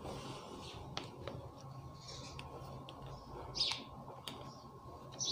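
Quiet room tone with a low steady hum, a few faint clicks and some soft, short high chirps.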